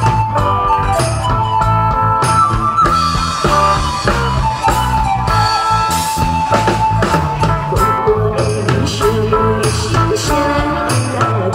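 A woman singing a song into a microphone over loud amplified backing music with a steady drum-kit beat and guitar, heard through the stage's PA system.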